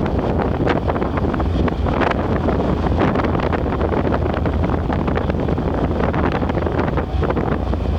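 Strong wind blowing across the microphone: a dense, steady rush, heaviest in the bass, broken by frequent short crackling gusts.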